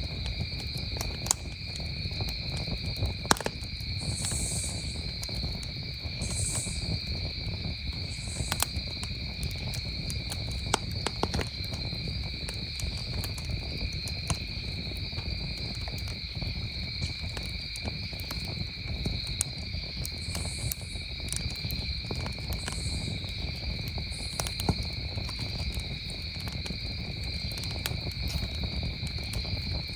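Campfire crackling with scattered sharp pops over a low steady rumble, against a constant chorus of crickets trilling. A few short, higher insect chirps come and go every couple of seconds.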